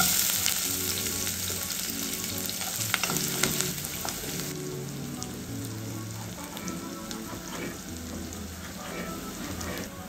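Chopped onions dropped into hot oil in a pot, sizzling loudly at once and then frying steadily as the sizzle slowly eases. A few sharp clicks come about three seconds in.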